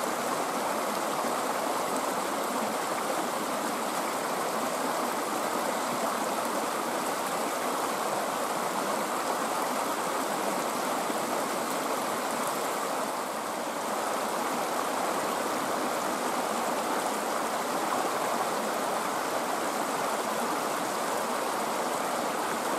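Small rocky mountain creek rushing over stones and shallow riffles, making a steady rush of running water.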